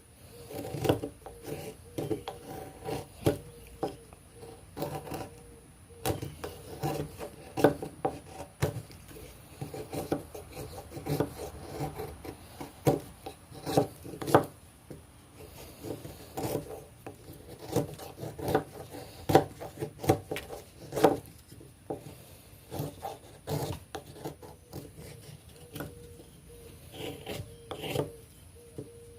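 TOPS Bull Trout fixed-blade knife whittling hard seasoned oak into a tent stake: a long run of irregular short scraping cuts and clicks as the blade shaves the wood, about one or two strokes a second.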